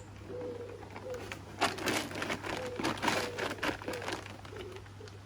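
Bird food, likely peanuts, tipped out onto a bird table: a dense rattling patter of many small hits lasting a couple of seconds. Pigeons coo throughout.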